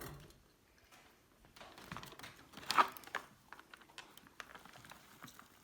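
Faint rustling and light clicks of a freeze-dried meal pouch being handled, with one louder rustle about three seconds in.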